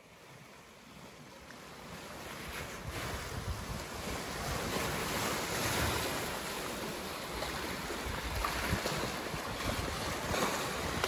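Lake waves washing against the shore, with wind buffeting the microphone. The sound fades in over the first few seconds, then holds steady.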